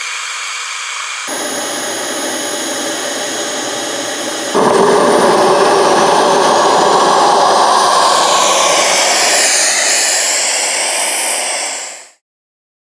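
Engine of an RC scale model CT-114 Tutor jet running with a steady high-pitched whine. It gets louder about four and a half seconds in, its pitch wavers up and down near the end, and it fades out abruptly about twelve seconds in.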